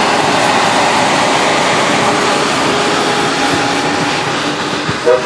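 Amtrak Acela Express trainset passing close by at speed: a steady loud rush of steel wheels on rail and air, easing slightly as the coaches go by. A short horn blast sounds right at the end.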